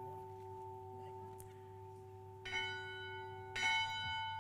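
A bell ringing: the tones of a stroke still ring on at the start, then the bell is struck twice, about a second apart, each stroke ringing on afterwards.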